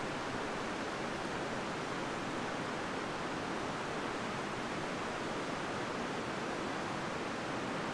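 Steady, even rush of a flowing river.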